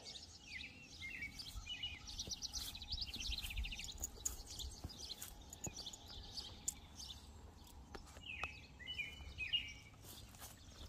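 Songbirds calling in short chirps, with a fast trill about two to four seconds in and another run of chirps near the end, over a faint low rumble.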